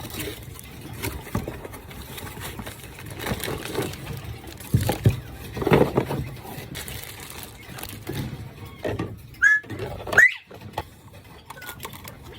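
Quail giving short chirps in the latter part, over a run of irregular taps, scratches and scuffles as the birds move about.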